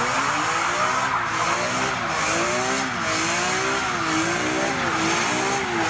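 A car drifting: its tyres squeal steadily while the engine revs, its pitch rising and falling about once a second.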